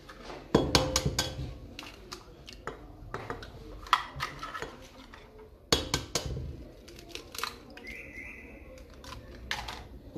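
Eggs being cracked and emptied one after another into a metal mixing bowl of flour: sharp taps and clicks of shell and bowl in several separate clusters.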